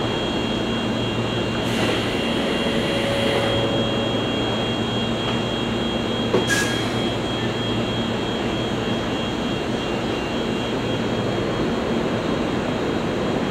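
Electric train standing at the station with its on-board equipment running: a steady hum with a thin high whine. A brief hiss about two seconds in and a single sharp click about six and a half seconds in.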